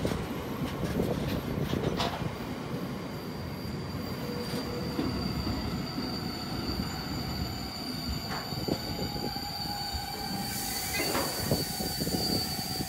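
A train running past on the line, with a thin, high, steady wheel squeal setting in about two seconds in. A few sharp clanks come over the rumble of the wheels.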